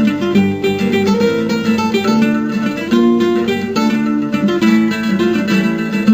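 A Symphony mobile phone's ringtone playing: an acoustic guitar tune of plucked notes.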